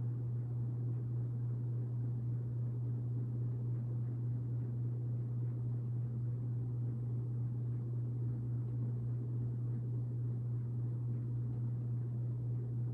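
Hampton Bay Minuet III ceiling fan running, a steady low hum with a faint rush of noise underneath.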